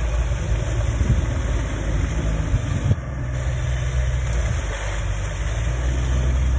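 SHERP amphibious ATV's diesel engine running steadily as the machine churns through deep mud and water on its huge low-pressure tires, with a brief dip in level about three seconds in.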